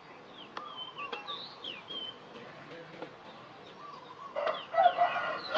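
Birds chirping: short, quick chirps in the first half, then a louder burst of pitched calls from about four and a half seconds in to the end.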